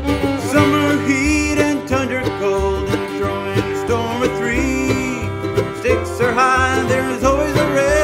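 Upbeat country-bluegrass music with plucked strings, guitar and banjo.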